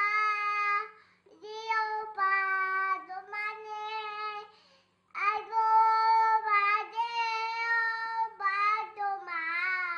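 An 18-month-old toddler singing in a high voice, holding long notes in phrases, with short breaks about a second in and about five seconds in.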